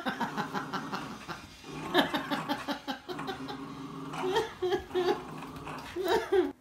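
Two dogs, a Labrador and a small terrier, growling in play during a tug-of-war over a toy, with a rough, choppy growl that keeps going.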